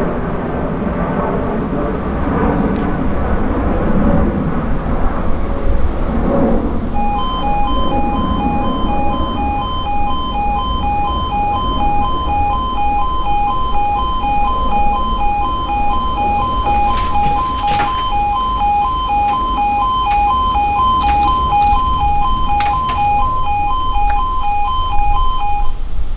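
British level crossing's audible warning starting about a quarter of the way in: a loud pulsing alarm tone repeating about two to three times a second, sounding as the crossing closes for an approaching train. A few sharp clicks come in the second half, and low rumbling noise fills the first seconds.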